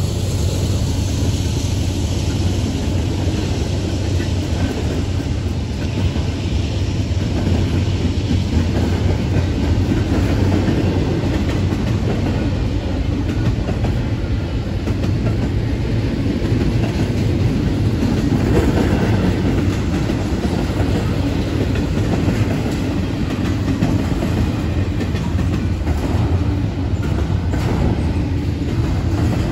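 CSX double-stack intermodal freight cars rolling past: a steady, loud rumble of steel wheels on the rails.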